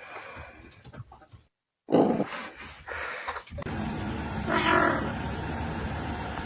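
An animal vocalising: a loud cry about two seconds in, then a drawn-out call near the middle over a steady rushing background.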